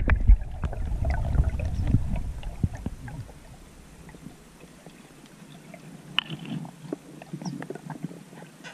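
Water churning and gurgling around a camera at the surface of a freshwater lake for about the first three seconds, with small splashes. It then gives way to the much quieter, muffled sound of being underwater, with scattered small clicks and crackles as a freediver goes down toward the bottom.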